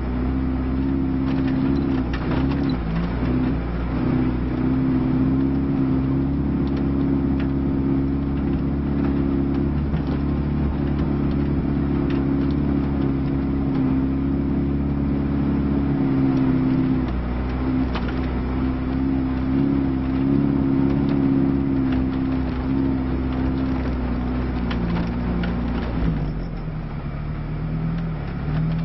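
Lada Niva's four-cylinder engine running steadily under load, heard from inside the cabin as it climbs off-road, with scattered clicks and knocks. Near the end the engine note drops lower and quieter.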